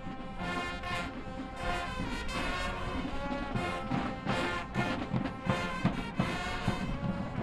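High school marching band playing: brass section (trumpets, trombones) sounding sustained chords, with sharp drum hits that come more often in the second half.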